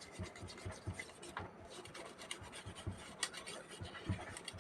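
A brush wet with petrol scrubbing a UPS circuit board, making faint, irregular scratching strokes on the board.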